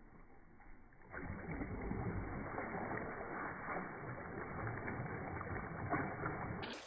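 Slowed-down, deep churning and bubbling of pool water as a tennis racket is swept through it, rising sharply about a second in and holding steady.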